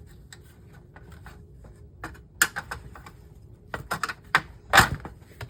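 Irregular clicks and knocks of a monitor's sheet-metal piece and plastic housing being worked apart by hand, sparse at first and busier in the second half, with the loudest knock near the end.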